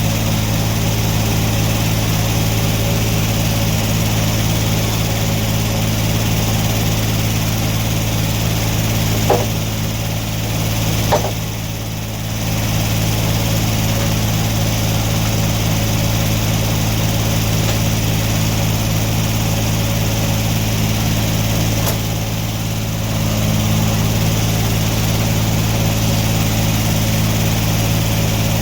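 Sawmill running steadily, its engine humming evenly with the old saw blade spinning. Two sharp knocks come about two seconds apart a third of the way through, and the sound briefly dips twice.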